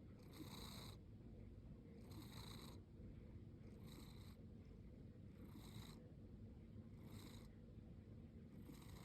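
A sleeping cat snoring faintly. It gives a soft breathy snore about every second and a half, over a low steady rumble.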